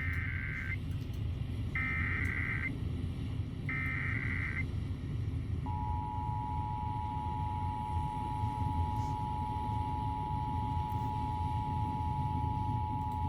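Emergency Alert System header: three short bursts of warbling digital data tones, each about a second long, then about six seconds in the steady two-tone EAS attention signal begins and holds, over a steady low rumble. This is the opening of a statewide EAS test.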